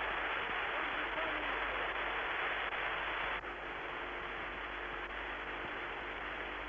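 Steady hiss of an open radio communication channel, with a faint steady hum, dropping slightly about three and a half seconds in.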